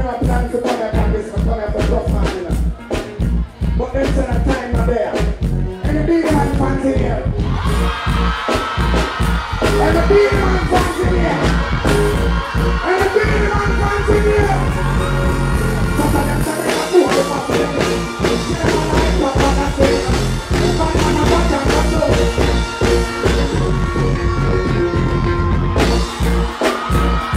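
Live dancehall music played loud through a stage sound system: a heavy, regular bass beat with a vocalist singing into a microphone, the melody filling out with held notes from about eight seconds in.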